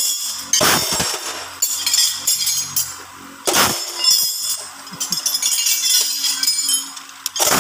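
Steel bar clinking and knocking against the planet gears of a planetary gear hub, metal on metal, with three louder sharp knocks: one less than a second in, one about halfway, and one near the end.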